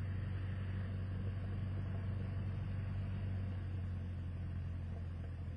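Cessna 172SP Skyhawk's four-cylinder Lycoming engine running steadily at low power as the plane taxis after landing, heard inside the cockpit as a constant low drone.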